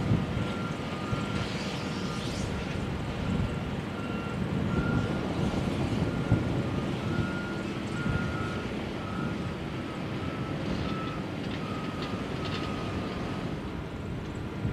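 Heavy construction machinery running with a low rumble, while a vehicle's reversing alarm beeps steadily, about two short beeps a second, in two slightly different pitches.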